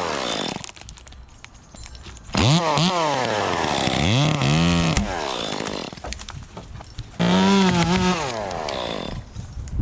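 Gas chainsaw revved up to full speed twice, about two and a half seconds in and again about seven seconds in, dropping back towards idle in between, while cutting limbs from a tree.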